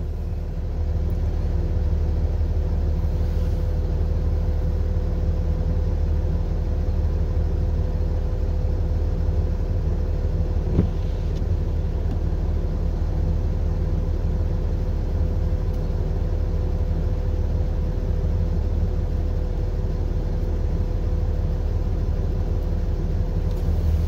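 Stationary vehicle idling, heard from inside the cab: a steady, even engine hum with a constant tone over it, and one short click about eleven seconds in.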